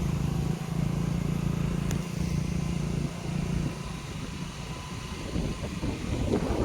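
A motor engine running steadily with a low hum, mixed with wind noise. The hum fades after about four seconds.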